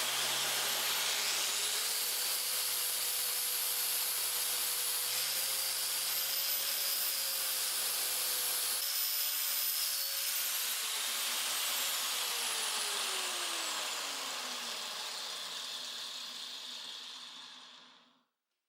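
Angle grinder motor spinning up to full speed and running steadily while weld burrs are ground off and the roller is trued. About ten seconds in it is switched off, and its whine falls steadily in pitch as it winds down to a stop.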